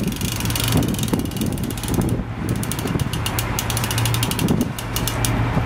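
Hand-cranked teaser reel being wound in, its ratchet clicking rapidly from about two seconds in, over the steady hum of the boat's engine.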